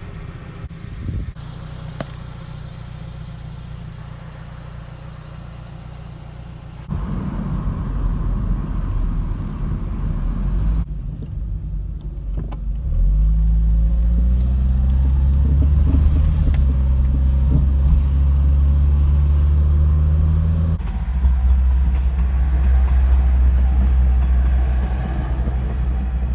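Peugeot 306 XSi under way: a steady low engine note with road noise. It grows louder in abrupt steps, at about seven seconds in and again at about thirteen, where the driving footage is cut.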